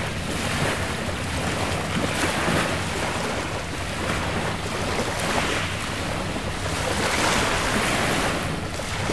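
Sea waves washing in, swelling every two to three seconds, with wind buffeting the microphone, over a low steady hum.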